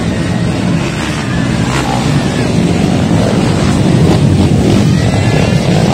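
Several motocross dirt bikes running together, engines revving as the pack rides by close, a little louder about halfway through.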